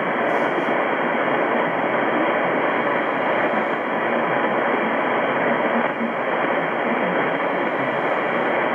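Steady hiss of shortwave static from a JRC NRD-545 receiver tuned to 6925 kHz in upper sideband, with the treble cut off by its narrow filter.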